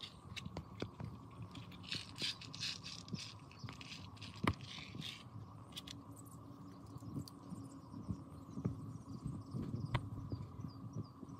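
Small clicks and rattles of 6 mm airsoft BBs being handled and pushed one at a time into a spring airsoft pistol's magazine, with a sharper click about four and a half seconds in and another near the end.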